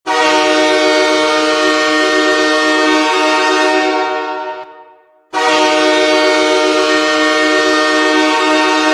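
Torpedo Nizhny Novgorod's ice-hockey goal horn sounding two long, steady blasts, signalling a goal. The first blast fades out over about a second, and the second starts sharply about half a second later.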